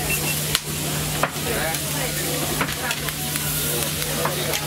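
Food sizzling on a hot cooking surface, with a few sharp clicks of metal utensils.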